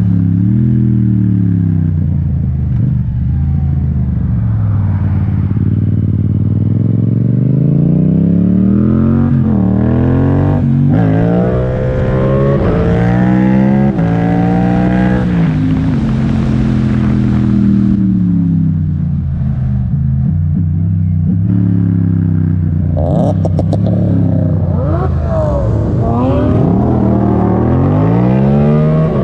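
Yamaha MT-07's 689 cc parallel-twin engine through an Akrapovic titanium exhaust, accelerating hard for power wheelies. The pitch climbs in several quick steps with a drop at each upshift, falls away as the throttle eases through the middle, then climbs through the gears again near the end.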